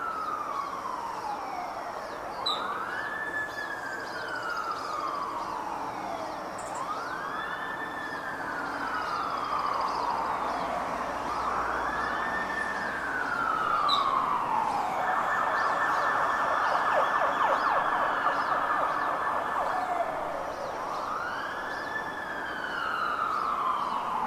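Electronic emergency-vehicle siren sounding a wail, each slow rise and fall lasting about four seconds. Past the middle it switches for about five seconds to a rapid warble, then goes back to the wail.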